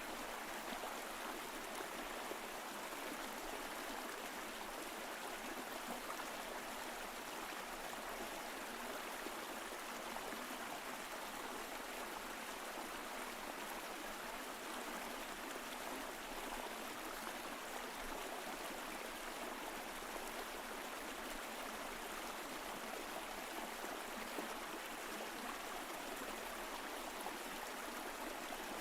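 Mountain stream flowing over rocks: a steady, even rush of water with fine gurgling and trickling.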